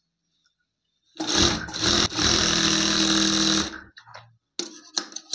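Industrial single-needle lockstitch sewing machine running a seam through layered fabric for about two and a half seconds, starting about a second in and stopping abruptly. It is followed by short rustles and clicks as the fabric is shifted under the presser foot.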